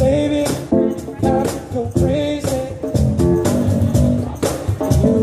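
Live pop song: a man singing over electric keyboard chords, with a steady beat.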